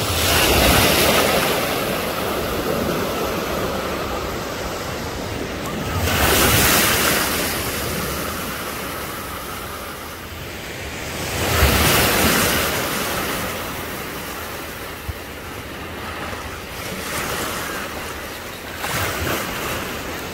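Small waves breaking and washing up on a sandy beach, a surge of surf about every five to six seconds between a steady wash of water.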